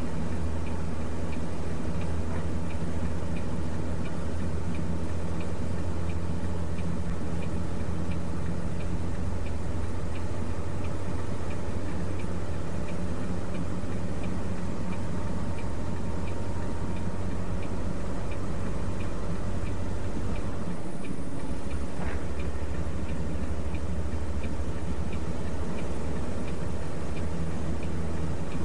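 Heavy truck's engine droning low and steady inside the cab while driving slowly, with a quick, regular light ticking that stops about twenty seconds in, when the drone briefly dips.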